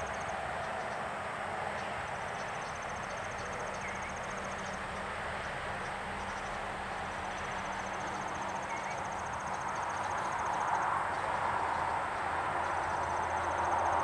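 Outdoor background noise, a steady broad rumble of distant traffic that swells louder near the end. Over it a high pulsed insect trill repeats in stretches of two to three seconds, and a faint short call note comes about every four seconds.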